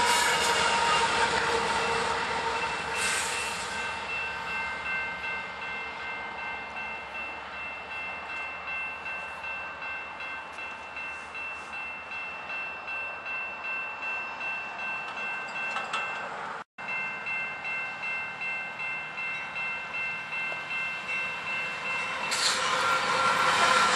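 A Canadian Pacific AC4400CW diesel locomotive passes close and fades within the first few seconds. A grade-crossing bell then rings steadily, about one and a half strokes a second. Near the end another GE diesel train approaches and grows loud.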